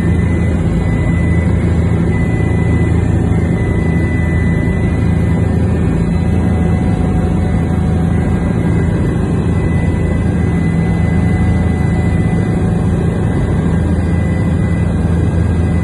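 Helicopter in flight: a loud, steady low drone of engine and rotor with a thin, steady whine above it.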